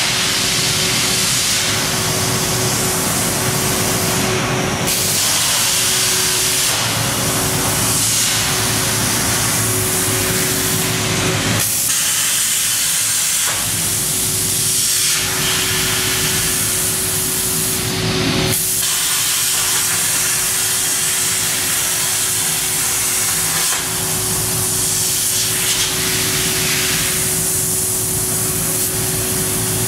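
Techserv Blue Marlin CNC plasma cutter running, its air plasma torch giving a loud, steady hiss over a constant hum. The hiss breaks briefly about every seven seconds, between cuts.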